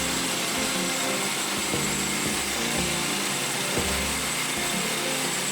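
Portable band sawmill running steadily as its blade rips through a log, mixed with background music.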